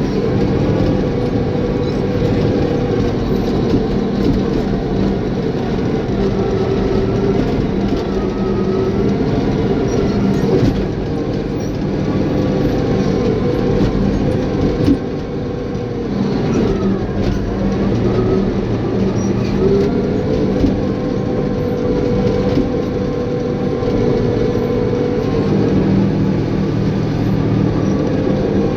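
Caterpillar bulldozer's diesel engine running steadily under load. The engine note dips and the level drops briefly about halfway through, then picks back up.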